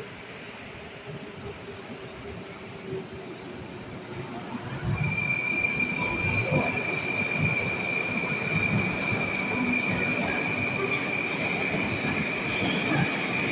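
Moskva-2019 metro train pulling out of the platform. At first there is only a low hum; about five seconds in it gets louder as the train moves off. A steady high whine sets in and runs on over the rumble of the wheels.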